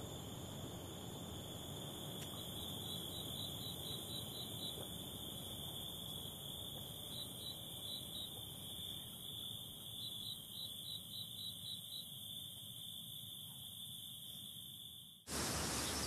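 Crickets shrilling steadily: one continuous high-pitched tone, broken into runs of quick pulses several times. About 15 seconds in it cuts suddenly to louder open-air ambience.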